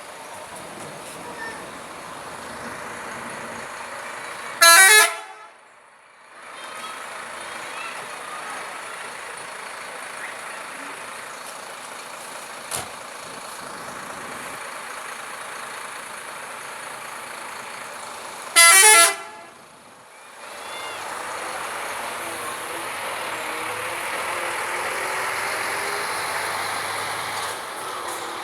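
Two short blasts of a Scania bus's telolet horn, a multi-tone musical horn, about fourteen seconds apart. Steady street and traffic noise fills the time between them and grows louder over the last several seconds.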